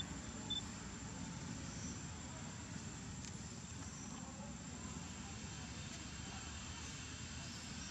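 Forest ambience: a steady high insect drone over a low rumble, with one brief high peep about half a second in.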